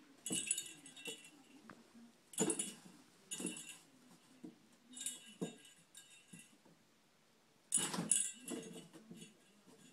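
A kitten scrambling through cardboard boxes: short bursts of scrabbling and rustling on cardboard, about five in all, the loudest near the end as it comes out through a hole.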